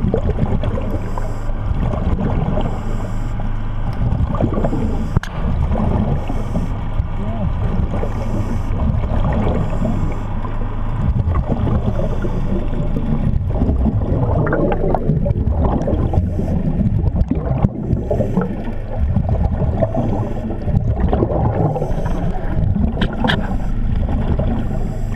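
Underwater sound beneath a dive boat: a steady low mechanical hum carried through the water, with bubbling and gurgling from divers' exhaled air that grows busier in the second half.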